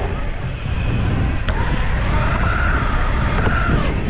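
Loud, steady low rumble of wind buffeting an action camera's microphone, with a faint high tone wavering in the background.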